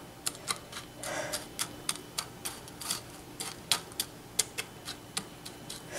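Metal spoon tapping and scraping against a ceramic pie dish while spreading buttered cookie crumbs: a string of light, irregular clicks, a few a second.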